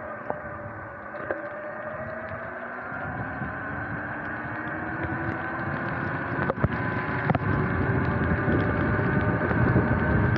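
Sur-Ron electric dirt bike under way on wet pavement: the electric drivetrain whines in several tones that dip briefly near the start and then climb steadily as the bike picks up speed, over wind buffeting and tyre hiss. Two sharp clicks a little after halfway.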